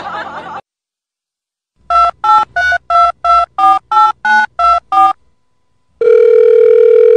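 Telephone keypad tones dialing a number: ten short two-note beeps at about three a second, then, after a short pause, one steady tone lasting about two seconds.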